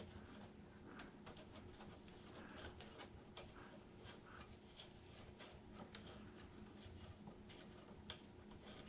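Near silence broken by faint, scattered light clicks and taps of hand tools working on a portable generator's carburetor, over a faint steady hum.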